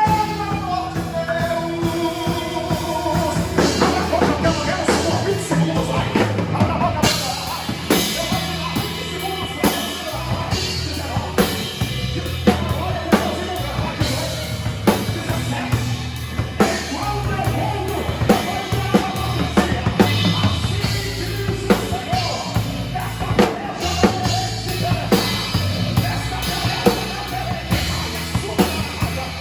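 Live gospel band music driven by a full drum kit, with regular bass drum and snare hits over a steady bass line. A voice sings over the first few seconds.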